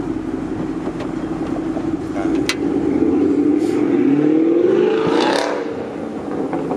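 A car engine running close by, with a steady drone that rises in pitch about four to five seconds in as the car revs and accelerates past, then fades.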